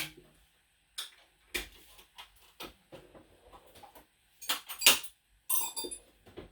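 Scattered clicks and knocks of someone rummaging for a tool among hand tools, with a louder clatter about four and a half seconds in and a brief ringing metallic clink just after.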